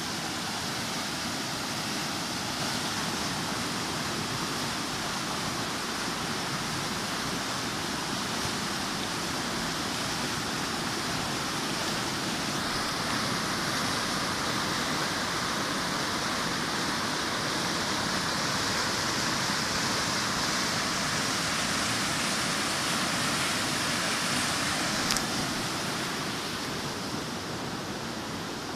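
Water rushing steadily through a fish ladder, a strong current making an even, continuous rush, with one brief click near the end.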